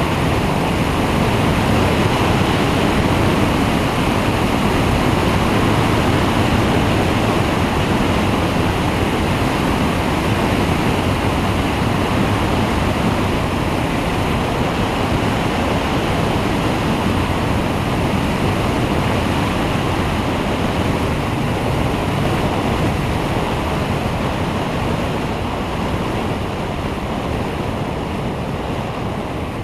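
Steady rushing airflow buffeting the microphone on the wing of a flex-wing microlight trike in flight, growing a little quieter toward the end as it slows to land.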